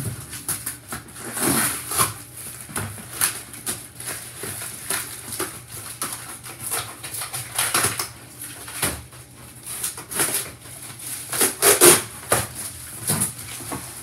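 Packaging being pulled apart and handled: irregular rustling, crinkling and scraping, loudest near the end.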